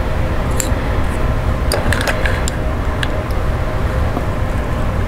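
Steady low background rumble with a few light clicks and taps from handling plastic model kit parts and glue during assembly.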